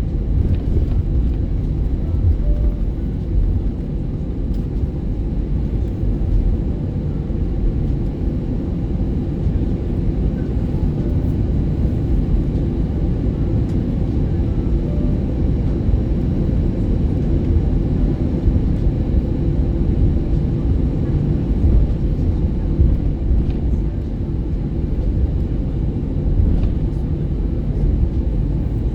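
Steady low rumble inside an Airbus A320's passenger cabin as it taxis after landing: the engines at idle and the airframe rolling along the taxiway.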